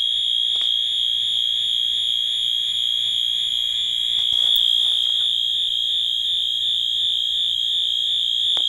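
Overfill alarms sounding one continuous, steady, high-pitched electronic tone with no pulsing, warning that a tank level has risen too high.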